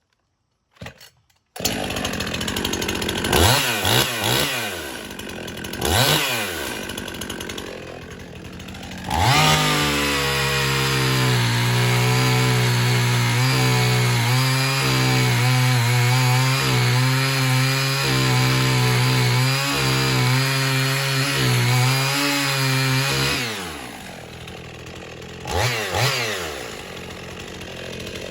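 Husqvarna 55 two-stroke chainsaw engine idling and revved sharply twice, then held at high revs for about fourteen seconds before dropping back to idle, with one more quick rev near the end.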